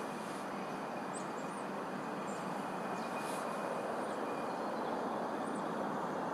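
Lumo Class 803 electric train running through, a steady rush of running noise that grows slightly louder, with a few faint bird chirps above it.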